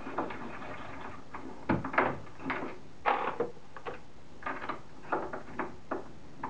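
Redding 2400 case trimming lathe being worked by hand: a run of separate metal clicks and knocks from the collet, crank and brass cases. About three seconds in comes a brief ringing clink of brass.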